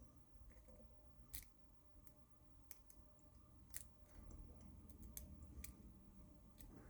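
Faint, irregular clicks of a lock pick and tension wrench working the pin stack inside a Brinks padlock, about half a dozen small ticks spread over several seconds.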